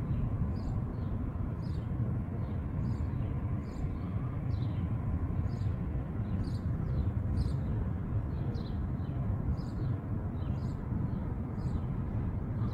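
Steady low outdoor rumble, with a small bird's short, high chirps repeating about twice a second.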